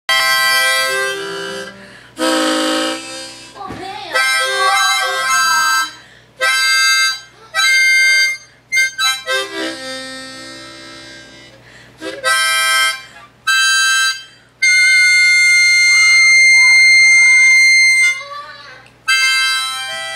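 A dog "talking": a string of high-pitched whines and yowls, some bending up and down in pitch, ending in one long, steady cry of about three seconds.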